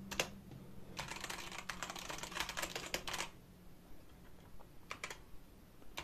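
Keys of a GameBooster G918 Fire Storm mechanical keyboard with red (linear) switches being pressed: a quick run of keystrokes about a second in, lasting about two seconds, then a few single key clicks near the end.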